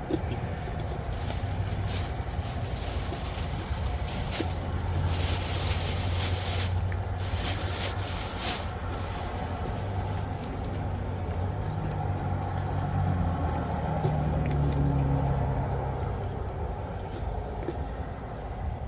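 Steady low engine hum, with short crackles scattered through the first half.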